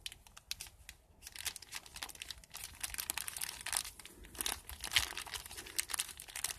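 A small plastic zip bag crinkling as gloved hands squeeze and knead it, breaking up the clumped wine cap mushroom spawn inside. It is a run of quick crackles, sparse at first and busier after about a second.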